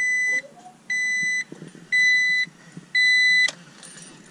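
Honda Civic's dashboard warning chime beeping four times, about once a second, each beep a clear high tone lasting about half a second, as the ignition key is turned on.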